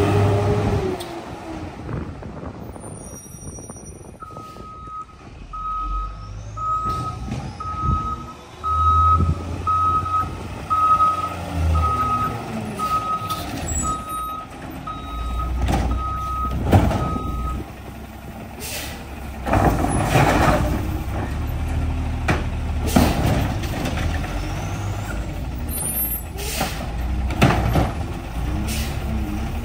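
Garbage truck's diesel engine running while its backup alarm beeps about once a second for some thirteen seconds, then stops. Several short air hisses follow as the engine keeps running.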